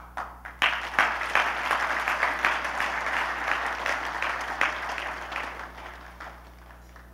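Audience applauding, starting suddenly about half a second in and dying away over the last couple of seconds.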